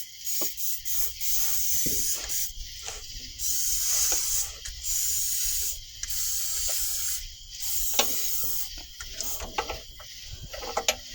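WD-40 aerosol can spraying in repeated hissing bursts that start and stop every second or few, with scattered clicks and knocks. The penetrating oil is being sprayed into a seized Chevy 5.3 V8 while it is turned over to free it.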